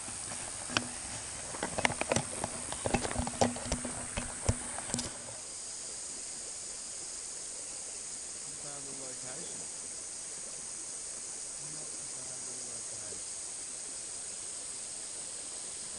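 Sharp clicks and knocks of the camera being handled and set down for about the first five seconds. Then a steady, high insect drone of the bush carries on alone.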